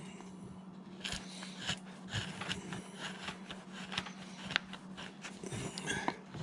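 Hand carving gouge paring chips from a wooden figure block in short, irregular scraping cuts. A steady low hum runs underneath.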